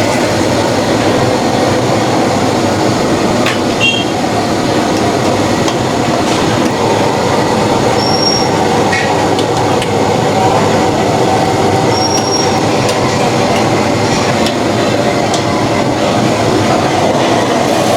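Loud, steady roaring noise with no speech, with a few short high-pitched squeals and light clinks, about four seconds apart.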